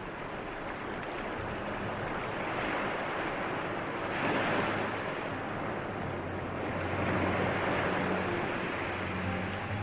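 Ocean surf washing onto a beach, the wave noise swelling and easing three times, with a faint low steady hum underneath.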